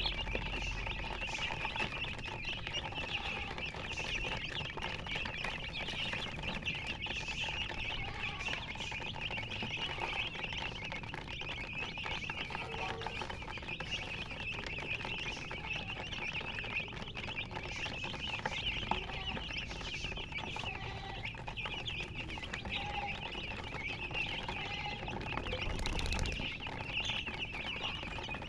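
Chickens chirping continuously in a dense high-pitched chorus, with lower hen clucks now and then. A brief noise near the end.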